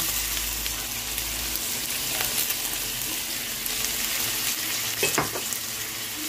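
Pork, pork liver and diced scallops sizzling steadily in oil in a stainless steel wok, with a wooden spoon stirring and scraping. A few light knocks about five seconds in.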